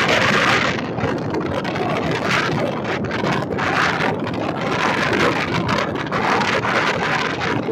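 Rushing noise of a passenger train's ICF coaches running at speed on the track, heavy with wind buffeting the microphone held out of the coach, surging in waves about every second.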